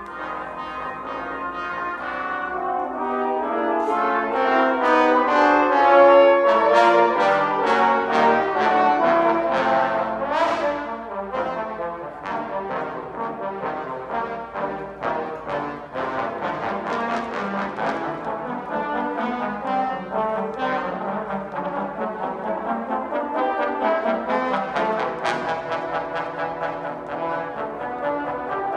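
Trombone ensemble of eight playing a piece together in several parts. It builds to its loudest about six seconds in, with a rising glide in pitch around ten seconds.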